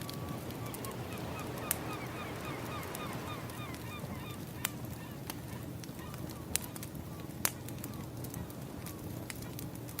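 Birds calling in a run of short, falling honks, about three a second, fading out after about five seconds. Sharp pops of a crackling wood fire and a steady rush of surf run underneath.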